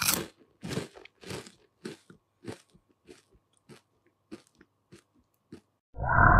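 A run of short crunching noises, about two a second and growing fainter, then about six seconds in a loud, held dinosaur call that starts as the toy Parasaurolophus opens its mouth.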